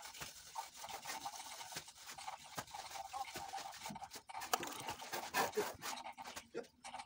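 Hand trowels scraping and rubbing wet cement plaster, in quick irregular strokes.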